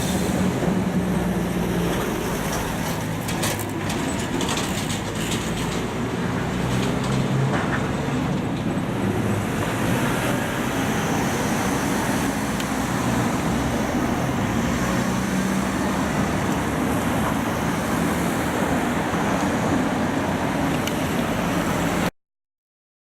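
Road traffic at a street intersection: car and bus engines running and passing in a steady mix of engine hum and tyre noise, with a few short clicks or rattles a few seconds in. The sound cuts off abruptly near the end.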